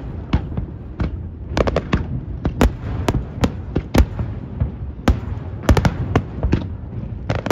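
Aerial firework shells bursting in rapid, irregular succession: many sharp bangs, some in tight clusters, over a continuous low rumble.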